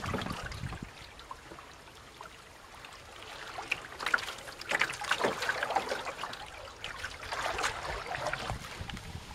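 Water trickling and splashing around a wooden canoe under way downstream. It is quieter for the first few seconds, then comes a run of sharper splashes, several a second or so apart, from paddle strokes in the water.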